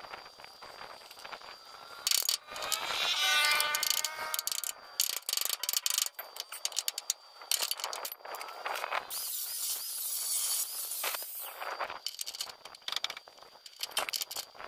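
Steel patch plate clinking and scraping against a truck's chassis rail as it is fitted by hand into a cut-out, a run of irregular knocks and clicks. About two seconds in, a drawn-out, wavering pitched squeal is the loudest sound, and a faint steady high whine runs underneath.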